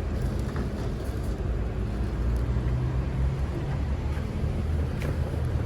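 Low, steady rumble of an idling vehicle engine, with a single sharp click about five seconds in.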